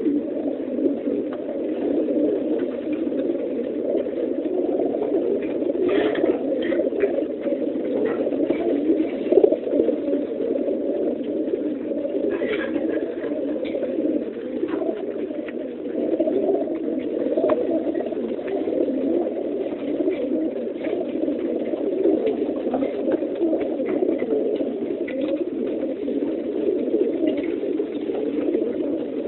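A large number of homing pigeons crated together, cooing all at once in a dense, unbroken chorus. A few light knocks and clicks stand out now and then.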